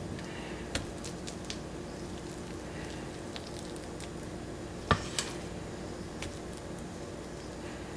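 Spatula spooning whipped mashed potatoes into a ceramic bowl: soft squishy dollops, with a few light clicks and a sharp tap about five seconds in, over a steady low hum.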